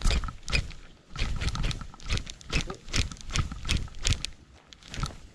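Handling noise on a body-worn camera: a cloth sleeve and hand rubbing and knocking against it in irregular bursts of rustles and thumps.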